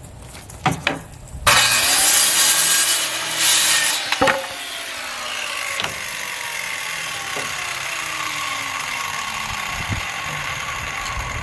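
Electric saw spinning up and cutting through a 2x4 for a couple of seconds, then the blade coasting down with a slowly falling whine.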